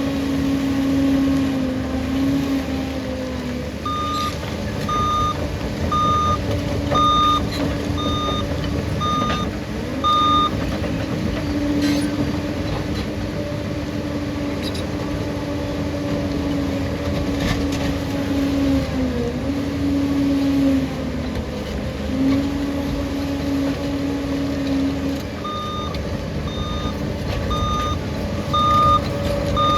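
Liebherr crawler bulldozer's diesel engine running, its pitch shifting with the load, while the machine's reversing alarm beeps about once a second during two spells of backing up: a run of about seven beeps a few seconds in, and another near the end.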